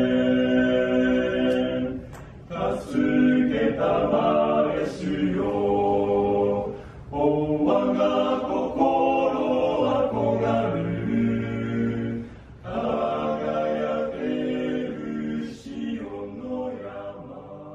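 Male vocal ensemble singing a hymn a cappella in close harmony, phrase by phrase with short breaths between. The last chord fades away near the end.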